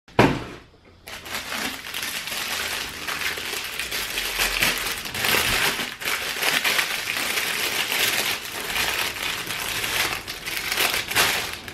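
Packaging crinkling and crackling steadily as a toy box is unwrapped and opened, after a sharp click at the start.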